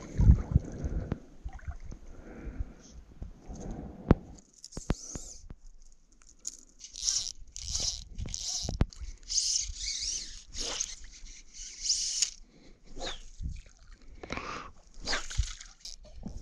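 Fly line being stripped in by hand through the rod guides: a run of short hissing pulls, one after another, starting about a third of the way in, after a few knocks from handling the rod.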